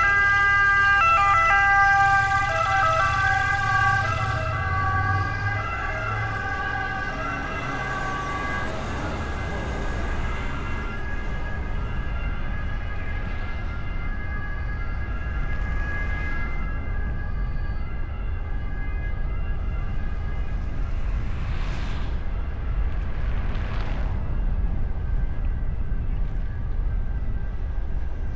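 Two-tone emergency-vehicle siren stepping between pitches, loud at first and fading away over about ten seconds. It plays over the steady low road and wind rumble of a car driving, picked up by a microphone on the car's bonnet.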